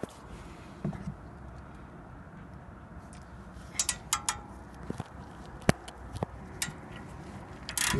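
A few scattered light metallic clicks from a ratchet handle on a track rod end nut, over a faint steady background; near the end the clicks come closer together as the ratcheting starts in earnest.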